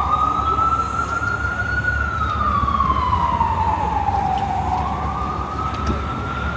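Emergency vehicle siren in a slow wail, its pitch rising and falling and then climbing again near the end, over a low city traffic rumble.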